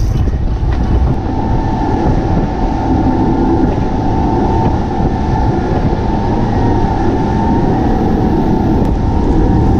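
Boat engine running at speed with a steady whine, under heavy wind and water rush.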